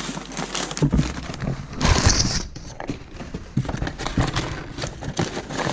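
Hands rummaging in a cardboard box, crinkling paper packing and plastic bags and rustling the cardboard flaps, with a louder crinkle about two seconds in.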